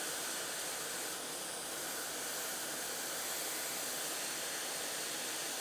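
Steady hiss of hot air blowing from an ATTEN ST-862D hot air rework station's nozzle as it desolders a diode from a circuit board.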